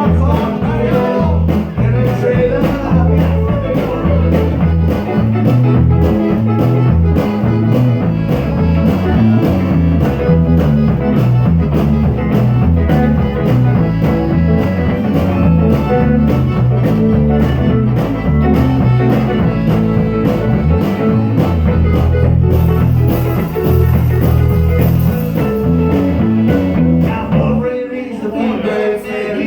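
Blues-rock music with guitar, bass and a steady beat. The bass drops out near the end.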